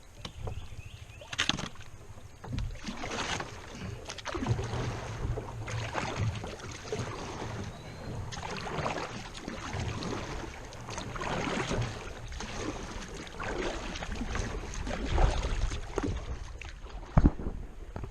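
Kayak paddle dipping and splashing in river water in irregular strokes, over a steady low rumble on the microphone.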